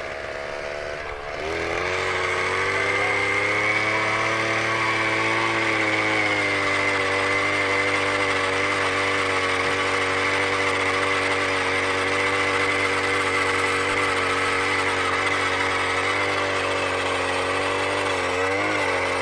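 Gas-powered ice auger engine opening up to high revs about a second in and holding steady while it drives a bevelling attachment around the bottom edge of the ice hole. Its pitch settles a little lower after a few seconds and dips briefly near the end.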